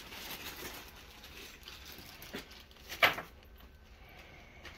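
Faint rustling and handling noises with small clicks, and one sharp knock about three seconds in.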